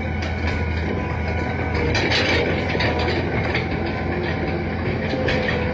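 Crawler excavator travelling on its steel tracks: the diesel engine runs steadily under irregular clanking of the track chains, thickest about two seconds in.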